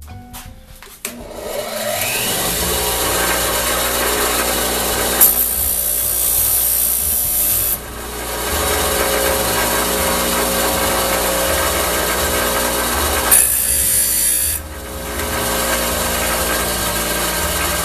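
Bench grinder motor starting about a second in, with a rising whine as it spins up, then running steadily. A high-carbon steel file is pressed against the grinding wheel twice for a spark test, and each contact adds a harsh high-pitched grind lasting a couple of seconds.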